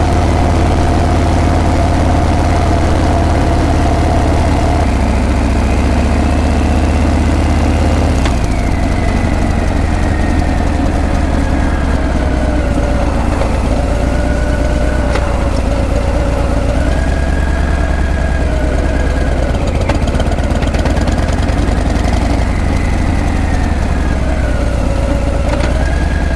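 Harley-Davidson Breakout's V-twin engine running with a steady low exhaust rumble, which eases off a little about eight seconds in. After that a thin wavering whine rises and falls above it.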